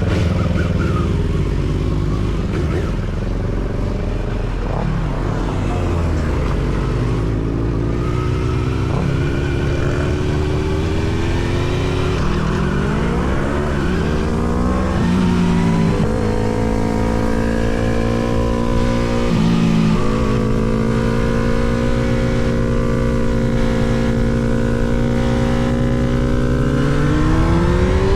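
Suzuki GSX-R750 SRAD inline-four with a Yoshimura R77 exhaust under way. The engine note rises and falls through the gears, dips low around the middle, holds steady for a while, then climbs again near the end.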